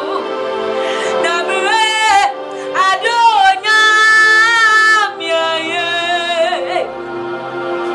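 A woman singing a gospel worship song in sliding, drawn-out phrases, holding one long note about halfway through, over sustained backing chords.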